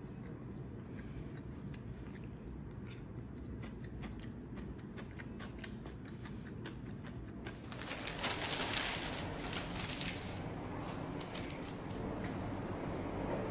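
Light clicks of chopsticks against plates and bowls over a low, steady room hum. Past the middle it turns to brighter rustling with scattered light knocks.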